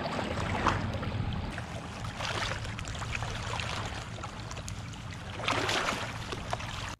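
Steady rushing noise of wind and lake water, with scattered faint clicks.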